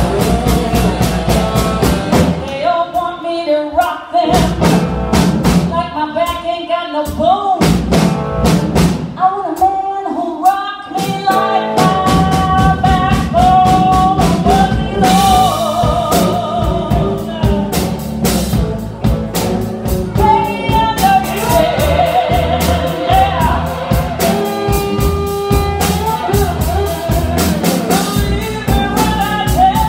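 Live blues band with a woman singing over lap steel guitar, electric bass, guitar and drum kit. In the first ten seconds or so the band drops out briefly three times, leaving the voice and sharp drum hits, then plays on together.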